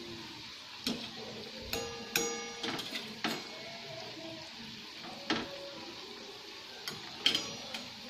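Onion bondas deep-frying in hot oil with a steady sizzle, while a metal wire skimmer knocks against the steel pan: several sharp clinks, some with a brief metallic ring, the loudest about seven seconds in.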